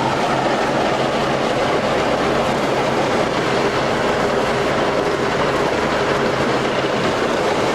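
Tandem road roller running, its engine and drive making a loud, steady mechanical clatter.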